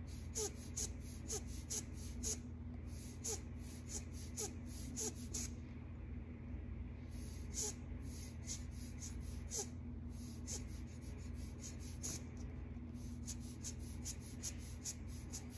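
Rubber air blower bulb squeezed by hand over and over, puffing air onto wet alcohol ink in short hissy bursts, about two or three a second with a brief pause near the middle. Many squeezes give a small rising rubbery squeak, over a steady low hum.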